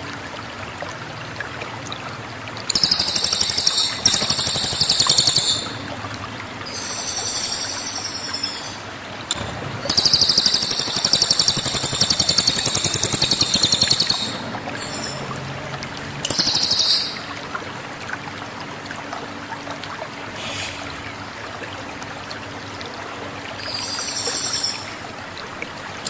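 Caged cililin songbird singing loud, sharp, high-pitched song phrases in bursts of one to four seconds, with short pauses between them. This is the piercing "tembakan" song that bird keepers use as master song to train other songbirds.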